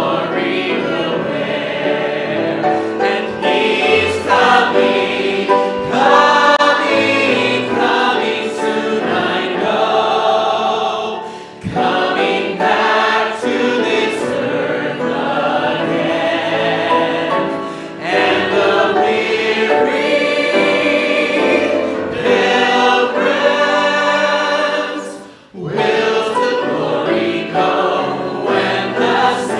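A hymn sung by a small group of singers on microphones, with short breaks between phrases about 11 and 25 seconds in.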